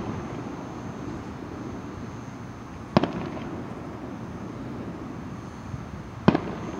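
Fireworks bursting: two sharp bangs about three seconds apart, the first followed by a few faint crackles, over a steady background hiss.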